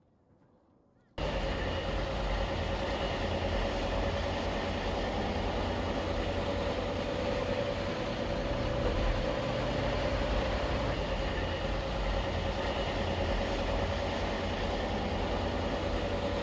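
Steady low rumble of a moving truck with a steady mid-pitched hum, starting abruptly about a second in.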